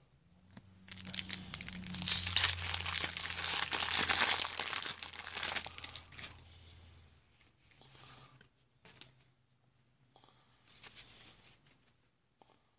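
The paper wrapper of a 1990 Topps baseball card pack being torn open and crumpled: loud crinkling for about five seconds, then a few short, quieter crinkles near the end.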